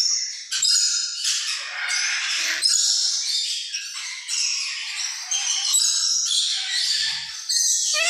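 Parrots screeching and squawking, a run of harsh, overlapping calls with short breaks.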